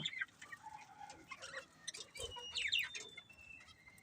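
Budgerigars chirping and chattering softly, a few short sliding chirps and scattered faint twitters.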